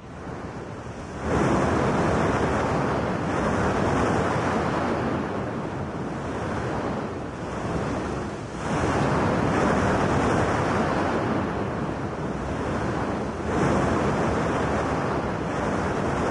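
Erupting volcanic vent in Tofua's crater giving off a rushing noise as it degasses and throws out lava spatter, swelling up about a second in and surging again twice.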